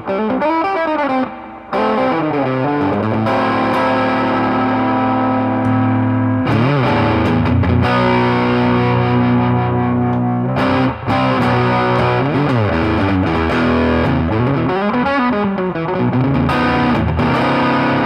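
Electric guitar played through a Mesa Boogie 5:25 Express 1x10 tube combo amp with an overdriven, distorted tone. The playing mixes string bends and vibrato with sustained notes and chords, with short breaks about a second and a half in and near the middle.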